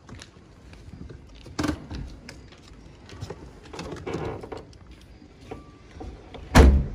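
Scattered clicks and knocks at a gate, then one heavy thump near the end.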